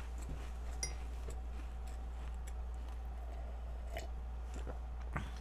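Faint close-up eating sounds: chewing and small mouth clicks, then sips of milk from a glass near the end, over a steady low electrical hum.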